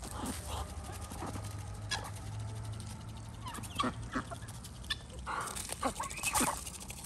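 Chickens and ducks clucking and calling as they feed, with short sharp clicks of beaks pecking wheat grain from a wicker basket.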